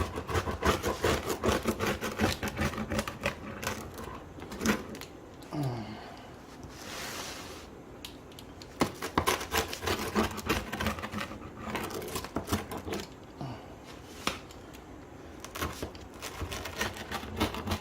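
A crisp-crusted pizza being cut up: runs of quick crunching clicks as the blade goes through the crust, in several bursts, with a short scraping hiss partway through.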